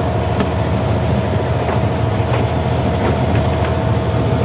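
Fishing boat's engine running steadily, a constant low rumble with a steady tone in it and a few faint knocks, over the wash of choppy sea.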